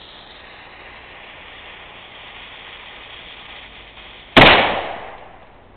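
A homemade .50 caliber black powder cannon firing once, loaded with about 30 grains of FFg powder: one loud sudden bang about four seconds in, with a tail that dies away over about a second.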